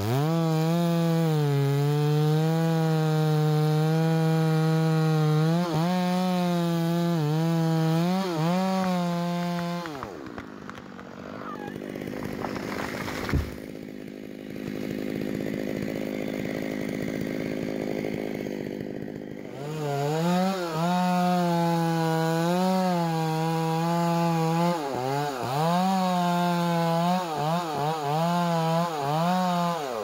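Stihl chainsaw running at full throttle in a felling cut, its pitch dipping now and then under load. About ten seconds in the saw drops away and the tree comes down, with one sharp crash as it hits the ground. From about twenty seconds the saw is cutting at full throttle again.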